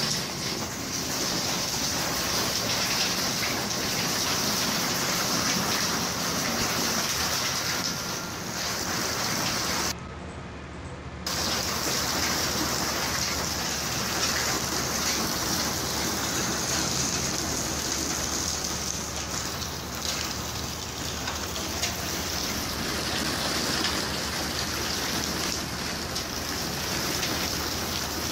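Rain falling steadily, a continuous hiss. It thins and dips for about a second near the ten-second mark.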